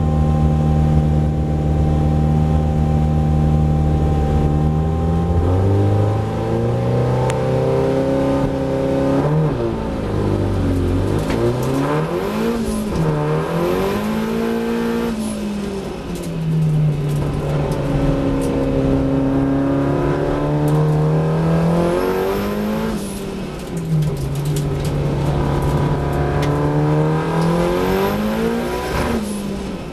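Datsun 1600 race car's four-cylinder engine, heard from inside the cabin. It is held at steady revs for about five seconds while the car stands on the grid, then rises as the car launches and accelerates hard. The pitch drops sharply several times and climbs again, as the driver shifts gears and lifts for the bends.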